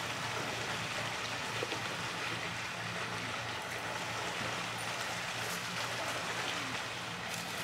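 Steady rush of running water with a low hum underneath.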